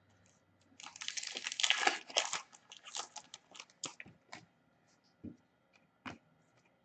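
A foil trading-card pack wrapper being torn open and crinkled, followed by scattered light ticks and rustles as the cards are handled.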